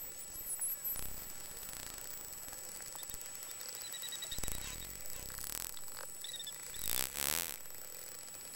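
Underwater sound of spinner dolphins: high gliding whistles over scattered clicks, with rapid buzzing click bursts, the loudest about seven seconds in.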